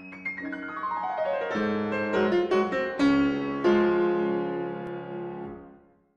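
Piano outro music: a quick run of notes, then several struck chords that ring and fade away to nothing just before the end.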